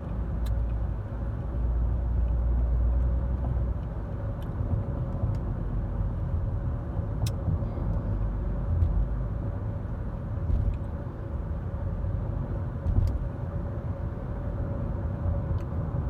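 Road and engine noise inside a moving car: a steady low rumble with a faint steady hum, and a few light clicks.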